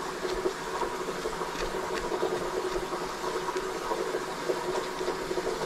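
A steady hum in the background, with a few faint scrapes and taps as a fillet knife cuts the shoulder meat off a channel catfish on a board.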